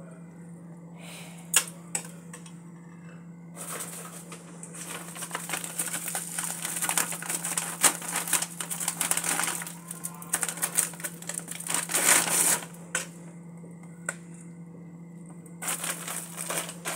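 Plastic pack of dried rice noodles (bihon) crinkling as it is handled, with the brittle noodle blocks crackling as they go into a metal pan. The crackling is densest from about four to thirteen seconds in, with a shorter burst near the end, over a steady low hum.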